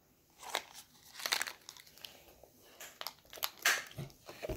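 Crinkling of a plastic candy wrapper, handled in short irregular bursts.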